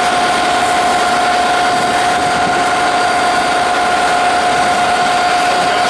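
Steam locomotive No. 461, standing and letting off steam: a continuous loud hiss with a steady tone running through it.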